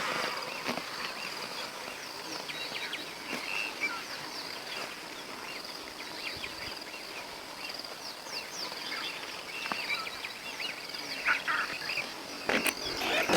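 Outdoor ambience of a steady high-pitched insect drone with many short bird chirps and calls scattered through it. A few louder knocks or rustles come near the end.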